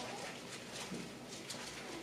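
Many small poodle puppies' feet pattering on a kitchen tile floor and runner, with lots of quick light claw clicks.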